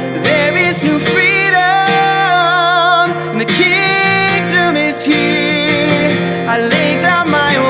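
Worship song: a voice singing long, wavering held notes over acoustic guitar.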